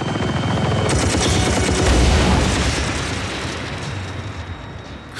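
Sci-fi energy blaster fire and explosions: a dense, rapid barrage of shots and booms that peaks about two seconds in and then fades.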